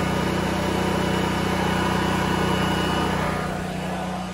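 Honda GX340 single-cylinder four-stroke engine driving a Tsurumi generator, running steadily at full speed with its idle control switched off and running smoothly. It grows fainter a little after three seconds in.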